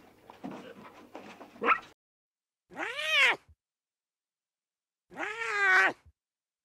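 Lion cub mewing: a short stretch of softer calls and noise, then two drawn-out mews about two seconds apart, each rising and then falling in pitch.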